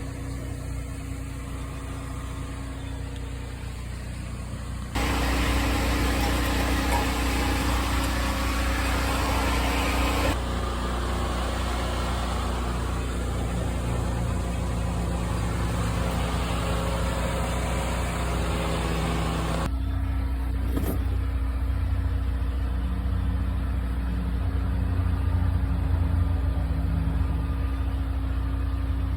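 A Toyota RAV4's engine idling steadily, its exhaust freshly rewelded at new flanges, which the welder says are not leaking. The sound jumps abruptly about 5, 10 and 20 seconds in, like cuts between takes, and there is a brief click a little after the last jump.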